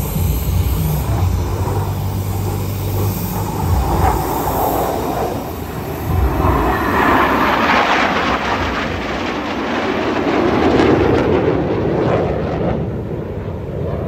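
A formation of display jets flying past, their engines making a loud rushing noise. It swells about halfway through and eases slightly near the end, over a low steady hum in the first few seconds.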